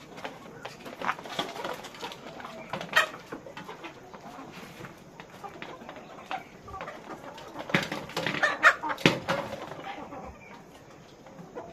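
Chickens clucking and calling in a poultry house, with several sharp clicks or knocks, the loudest about three seconds in and a cluster near the end.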